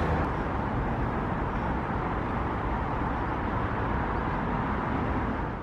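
Steady road traffic noise from cars passing on a busy multi-lane road.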